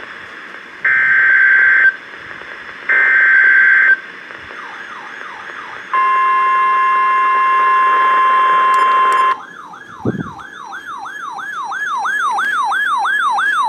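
Emergency Alert System signal on NOAA Weather Radio. It opens with two one-second bursts of screeching SAME header data tones. About six seconds in comes the steady 1050 Hz warning alarm tone, which lasts a few seconds. From about ten seconds in, an electronic siren alarm sweeps up and down about three times a second, growing louder.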